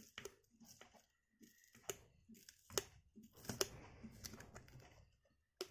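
A thin plastic pry tool working under a tablet's glass screen to cut through the adhesive: faint, irregular clicks and short scrapes.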